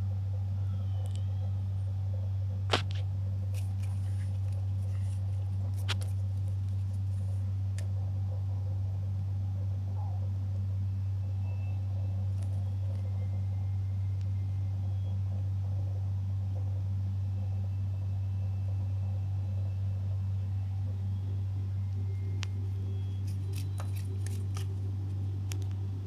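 A small blade scraping and clicking as it carves into a bar of soap: a sharp click about three seconds in, another near six seconds, and a quick run of clicks near the end. A steady low hum runs underneath.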